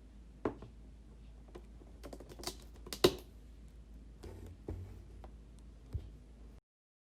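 Scattered light clicks and taps of hands handling a boxed action figure's packaging, over a low room hum. The loudest tap comes about three seconds in, and the sound cuts out abruptly near the end.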